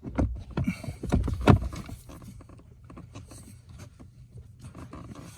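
A flurry of knocks, clunks and rattles in the first two seconds, loudest about a second and a half in, then lighter scattered clicks: a replacement blower motor and its mounting screws being handled and fitted up under a truck's dash.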